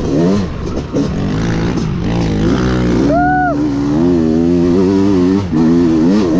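Dirt bike engine being ridden, its pitch rising and falling with the throttle and gear changes. A short, higher-pitched note rises and falls a little after three seconds in.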